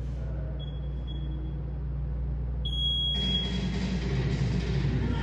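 Gym interval timer beeping: a few short, faint beeps, then one longer, louder beep at the same pitch, the countdown that marks the start of a new minute's round. Music starts just after the long beep.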